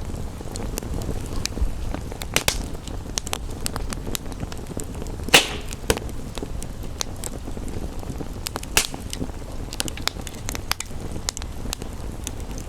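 Wood fire crackling, with a steady low rumble and many sharp pops and snaps, two louder pops about five and nine seconds in.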